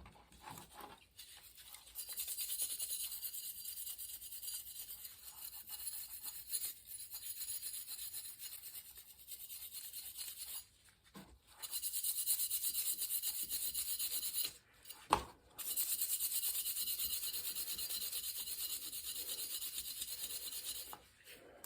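Grease being scrubbed off a bicycle front hub: long runs of fast, rhythmic rubbing strokes, broken by a short pause twice, with a single sharp knock about two-thirds of the way through.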